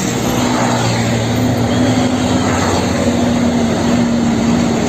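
A motor-driven cleaning machine running steadily: a low hum with a dense hiss over it.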